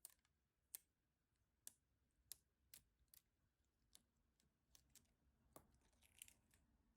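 Faint, irregular light clicks and taps, about a dozen, with a brief scratchy rustle about six seconds in: small hard parts being handled on a workbench.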